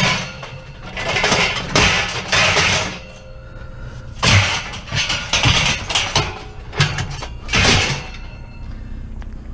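Light steel scrap clanking and scraping as it is handled, in several irregular bouts of metal clatter.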